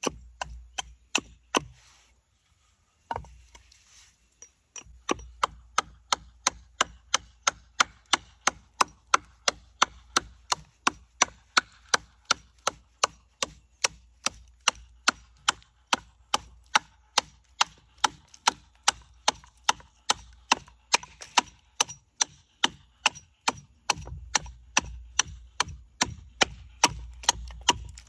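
Carving axe chopping into a walnut spoon blank: a few scattered blows and a short pause, then steady strikes about two a second.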